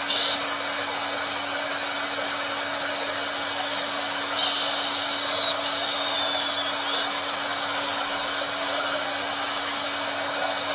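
Handheld blow dryer running continuously: a steady rush of air over a constant motor hum. A brighter, hissier edge comes in at the start and again for a couple of seconds about halfway through.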